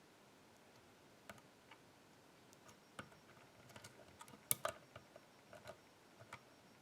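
Faint, scattered small clicks of a pick working the spool pins inside an AGB dimple-lock cylinder, bunched up and loudest about halfway through.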